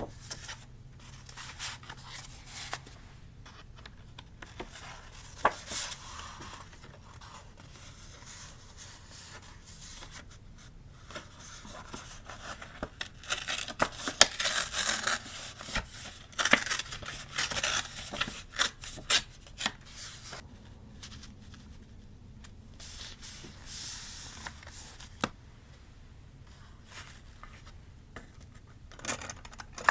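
Paper-craft handling sounds of journal decorating: paper rustling, rubbing and tearing, with scattered sharp clicks and taps, busiest about halfway through.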